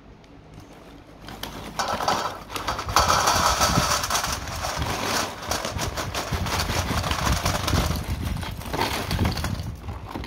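Crispy dried fruit and vegetable chips poured from a plastic snack bag onto a stainless steel tray: a dense, irregular rattling clatter of the hard pieces hitting the metal and each other, with the bag crinkling. It starts about a second in.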